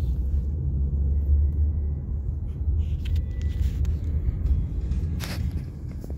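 Steady low rumble of a moving vehicle heard from inside, with a few faint clicks and a brief rustle about five seconds in.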